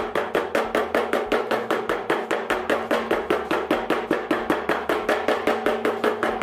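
Small hammer tapping rapidly and evenly on a rubber flip-flop sole laid on a workbench, about six sharp blows a second.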